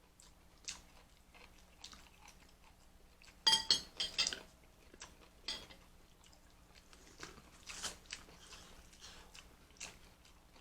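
Close-miked chewing and crunching of seafood-boil food, with scattered wet clicks. About three and a half seconds in comes a quick burst of sharp, loud cracks and clicks, with smaller ones later.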